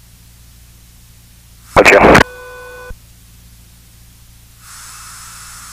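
Aircraft VHF radio audio over the intercom between transmissions: a low steady hum, one very short loud blip of a keyed transmission about two seconds in, then a steady buzzing tone for about a second after it. Near the end the channel opens with a steady hiss.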